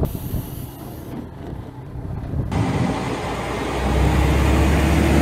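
Diesel railcar engine running as a low rumble. About two and a half seconds in the sound changes suddenly to a fuller one. Near four seconds in a steady low hum with a steady higher tone gets louder as the engine works harder.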